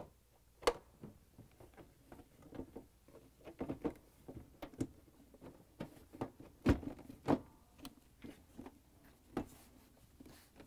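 White plastic dishwasher control panel being handled and pressed onto the door: scattered light clicks and knocks of plastic, with a sharp knock just before a second in and two louder ones a little past the middle.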